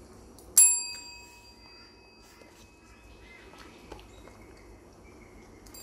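Chrome tap-style desk bell pressed by a beagle, ringing once about half a second in: a sharp ding whose clear tone rings on for about three seconds as it fades.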